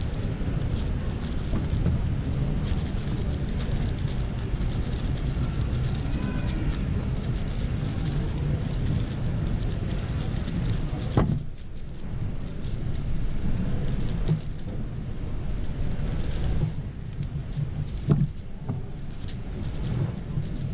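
MoYu AoShi WR M 6x6 speed cube being turned fast in the hands: a dense run of small plastic clicks and rattles over a steady low hall rumble. There is a sharper knock about eleven seconds in, after which the clicking thins, and further knocks near the end.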